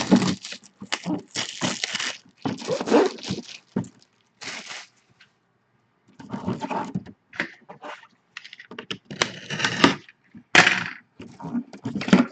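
Cardboard box and plastic packaging being torn open and handled, in irregular bursts of tearing, crinkling and knocks, with a short pause about halfway through.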